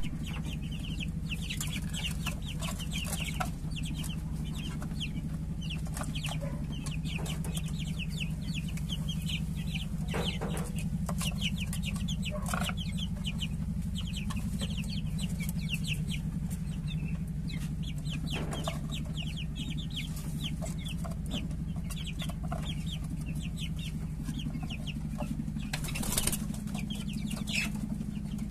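A brood of three-week-old Rhode Island Red, Barred Plymouth Rock and Black Australorp chicks peeping constantly in a fast stream of short, high, falling chirps. A few louder calls stand out, and a steady low hum runs underneath.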